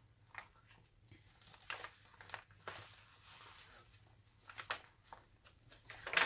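Paper rustling and soft taps as the thick card and paper pages of a handmade junk journal are handled and turned, a few scattered strokes with the loudest near the end as a page turns over.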